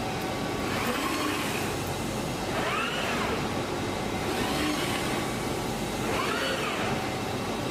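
CNC fabric cutting machine's gantry drive motors whining, rising and falling in pitch four times as the cutting head travels out to check the cutting range, over a steady rushing machine noise.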